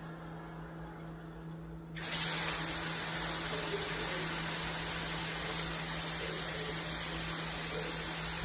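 Filtered handheld shower head spraying water, turned on about two seconds in: a steady, loud hiss of spray that cuts off suddenly at the end.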